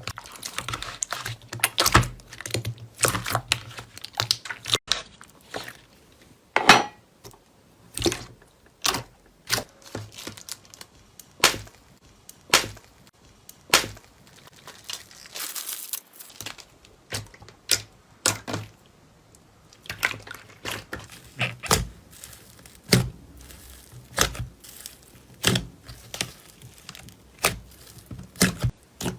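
Slime being pressed, poked and stretched by hand, giving an irregular run of sharp sticky pops and clicks, about one or two a second and denser at times.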